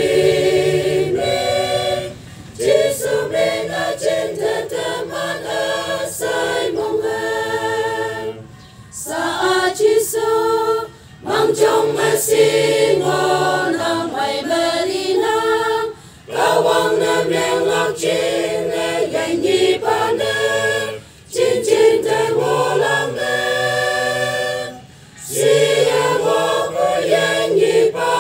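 Mixed choir of women and a few men singing a hymn unaccompanied, line by line with short breaks for breath between phrases.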